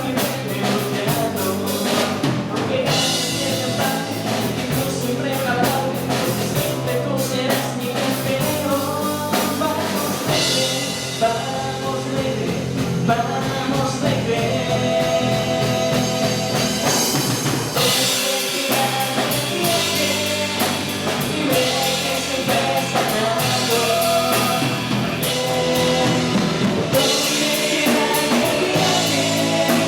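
Rock song with drum kit and singing: a football club's anthem.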